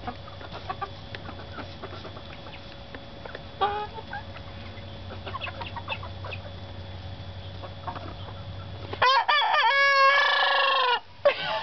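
Hens clucking softly, then about nine seconds in a young rooster crows loudly for about two seconds: a teenage cockerel's crow that starts in short broken notes and ends in one long held note.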